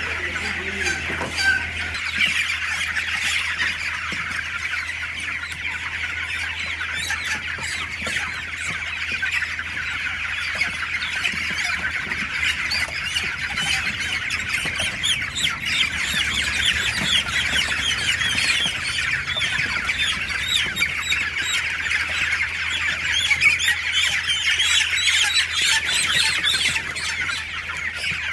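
A large crowd of newly hatched poultry chicks peeping all at once, a dense, unbroken chorus of short high cheeps that gets a little busier about halfway through.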